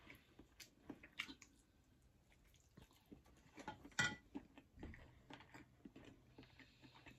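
Faint eating sounds: soft chewing and small mouth clicks at a meal table, with a sharper click about four seconds in.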